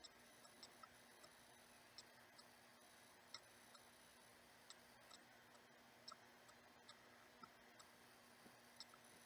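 Near silence: room tone with faint, irregular small clicks, about one or two a second.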